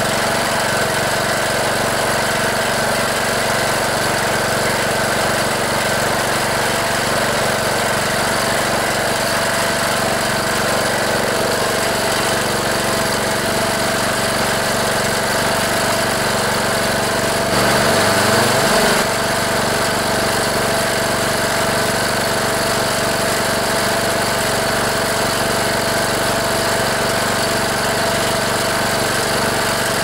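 Briggs & Stratton Intek 18.5 hp single-cylinder OHV riding-mower engine running steadily, staying running on its own with a new spark plug in place of a fouled one. A little past the middle it briefly gets louder and its note dips and comes back up.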